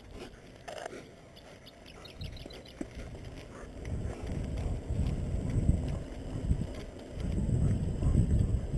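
Wind gusting over the microphone and a bicycle rolling along an asphalt road as it picks up speed. Fairly quiet at first, it builds from about three or four seconds in into a low, uneven rumble that is loudest near the end.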